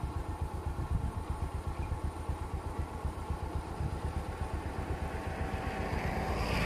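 A vehicle engine idling close by with a steady, fast low throb. A rush of higher noise builds near the end.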